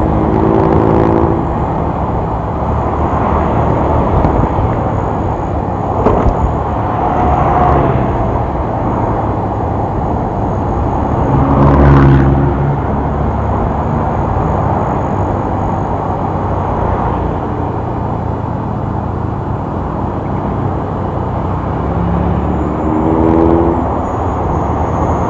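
Wind rumble and engine and road noise from a moving motorcycle, with short vehicle horn toots about a second in, near the middle (the loudest moment) and near the end.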